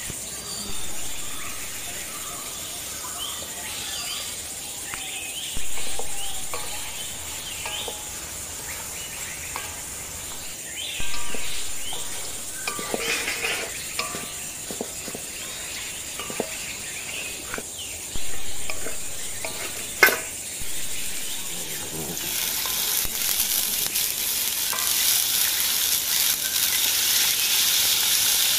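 Turtle meat and potatoes sizzling in a metal wok over a wood fire, with a metal spatula scraping and knocking against the pan several times. In the last few seconds water is poured in and the sizzling turns to a louder, steady hiss.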